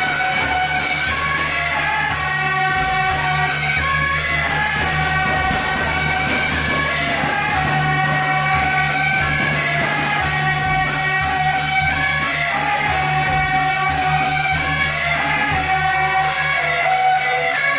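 Beiguan ensemble music playing loudly: a stepwise melody line over an even beat of crashing strokes.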